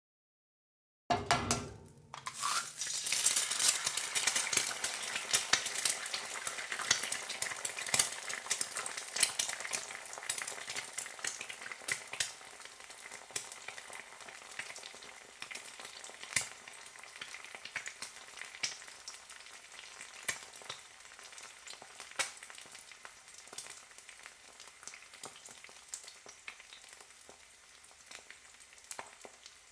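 An egg frying in a hot pan. The sizzle starts suddenly about a second in, swells over the next couple of seconds, then slowly dies down, with scattered sharp pops and spits throughout.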